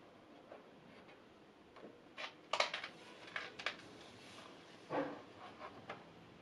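Stiff paper pages of a large pop-up book being turned, a cluster of crackles and rustles about two seconds in, then a fold-out flap lifted with another papery rustle about five seconds in.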